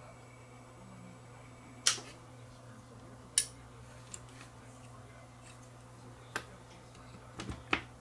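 A few sharp, separate clicks, two strong ones about a second and a half apart and several lighter ticks near the end, over a steady low hum.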